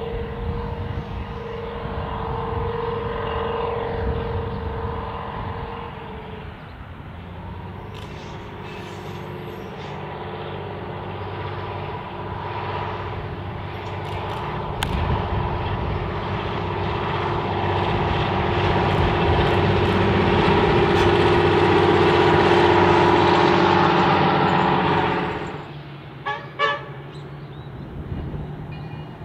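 Diesel-electric rail motor 58RM, GM 6-71 diesel powered, sounding a long steady horn blast for about the first six seconds. Its diesel engine then grows steadily louder as it approaches and comes close. The sound drops off sharply near the end, leaving a few short sharp sounds.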